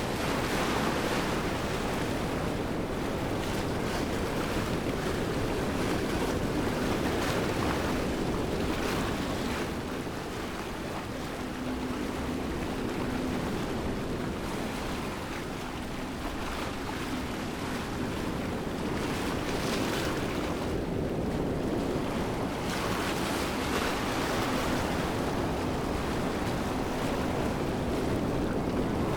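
Steady rushing of a waterfall: an even wash of falling water that swells and eases slowly.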